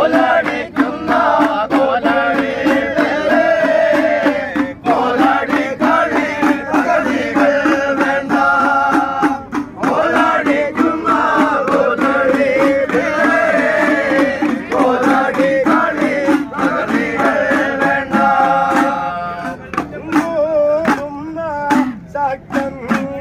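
A group of men sing an Ayyappa devotional chant together, with small hand-held hourglass drums (udukku) struck in a steady rhythm. The voices pause briefly a couple of times, and near the end the drumming stands out more.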